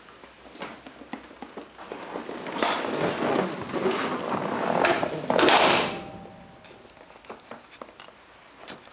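Knocks, scrapes and clatter from moving about inside the sheet-metal body of a 1970 Citroën HY van. The noise is loudest from about three to six seconds in, then gives way to a few sharp clicks.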